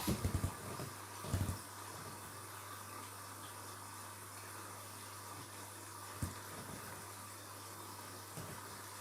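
Washing machine filling with water at the start of a wash cycle: a steady hiss of water running in over a low hum. A few knocks come in the first second and a half, and one about six seconds in.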